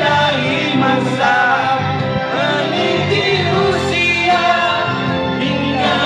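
Music with a voice singing a melody over instrumental accompaniment.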